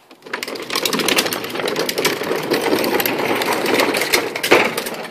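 Hard plastic wheels of a child's ride-on toy truck rolling and rattling over concrete as it is pushed, starting about a third of a second in and stopping just before the end, with a louder knock near the end.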